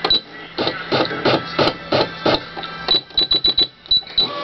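Computerized embroidery machine being jogged to reposition the hoop: a run of clicks and knocks as the hoop carriage steps, then a quick series of short high beeps near the end as its positioning keys are pressed.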